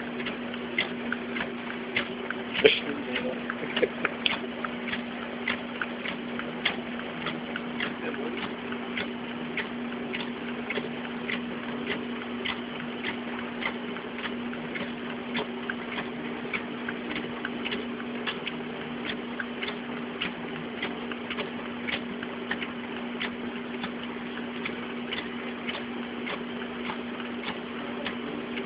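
Fujitsu fi-6800 sheet-fed production scanner running a batch of A4 paper: a steady motor hum with an even click about twice a second as the sheets feed through. A few louder knocks come around three seconds in.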